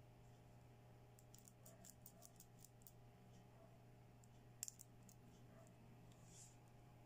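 Faint clicking of small pink plastic toy thinning scissors being handled, their plastic blades opened and closed: a quick run of light clicks, then a sharper double click a little later. A low steady hum sits underneath.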